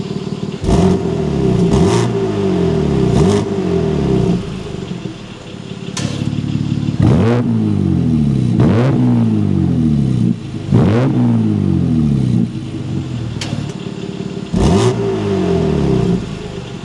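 BMW M2 twin-turbo inline-six heard at its quad exhaust tips, revved in a series of quick throttle blips. Each blip is a sharp rise in pitch that falls back to idle, about eight or nine in all, with a steadier idle in between.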